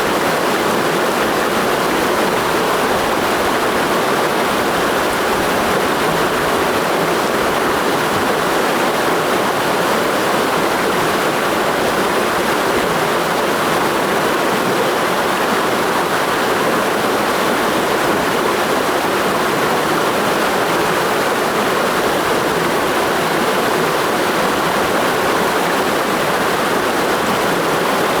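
A mountain stream rushing steadily through a gorge: an even, unbroken wash of flowing water with no changes.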